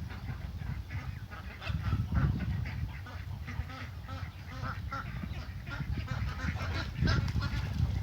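A flock of domestic ducks and geese calling, many short quacks and honks overlapping, louder about two seconds in and again near the end, over a steady low rumble.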